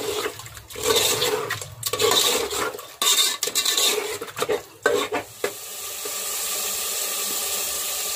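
A metal spoon stirring chicken in a yogurt and masala mix in a metal pot, in irregular scraping strokes. From about five and a half seconds in, a steady sizzle as the masala fries over a high flame.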